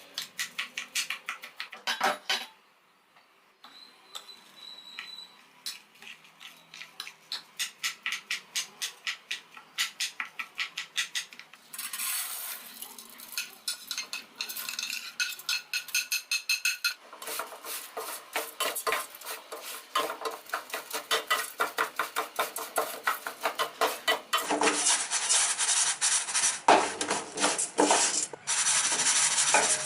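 A metal utensil stirring and scraping in a metal cooking pan, in rapid repeated strokes of a few per second, with clinks. There is a brief near-silent break about three seconds in, and the strokes get louder and denser near the end.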